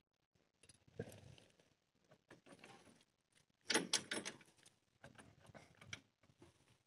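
A few faint knocks and clicks: a single sharp one about a second in, then a quick cluster of three or four around four seconds in.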